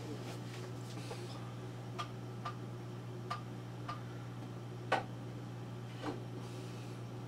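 About six short, sharp clicks at irregular intervals over a steady low electrical hum, the loudest click about five seconds in.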